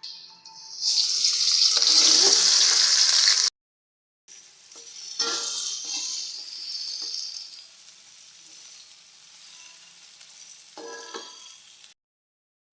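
Food frying in hot oil in a pan: a loud sizzle rises about a second in and cuts off abruptly, then a quieter sizzle returns and fades, with a few scrapes of a spatula stirring against the pan.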